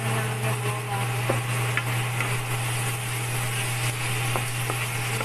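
Spatula stirring chorizo, asparagus and tomatoes in a frying pan as they fry, with a few light clicks of the spatula against the pan, over a steady low hum.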